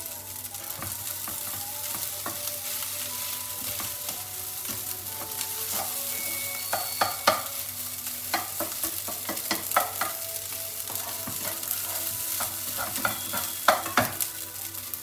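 Fried rice sizzling in a hot wok while a spatula stirs and scrapes it, with sharp clicks of the spatula against the pan. The loudest clicks come around the middle and near the end.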